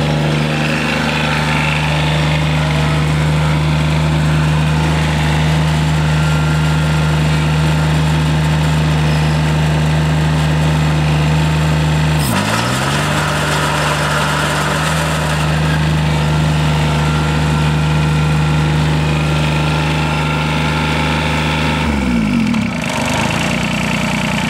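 John Deere 330 garden tractor's three-cylinder diesel engine running steadily as the tractor drives. Its pitch dips briefly about halfway through and drops again near the end.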